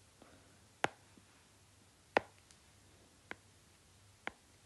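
Stylus tapping on an iPad's glass screen: four sharp ticks at uneven intervals, roughly a second apart.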